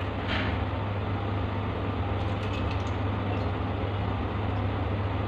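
Steady low mechanical hum with an even hiss, holding at one level throughout.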